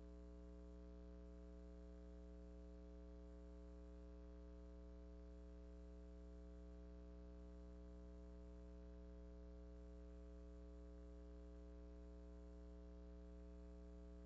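Near silence with a steady, unchanging low electrical hum.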